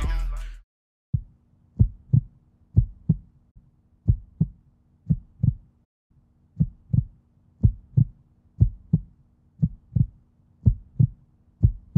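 Low double thumps in a heartbeat rhythm, about one pair a second, over a faint steady hum; a short pause near the middle.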